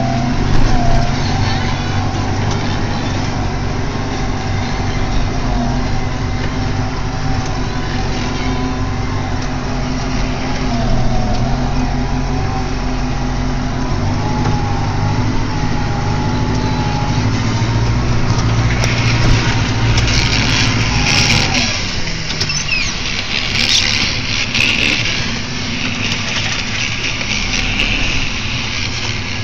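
SAME Silver 90 tractor's diesel engine running steadily under load while it pushes snow with a front plough blade, heard from inside the cab, with a wavering whine above the engine note. About two-thirds through, a burst of hiss joins in for a few seconds, and the engine note drops soon after.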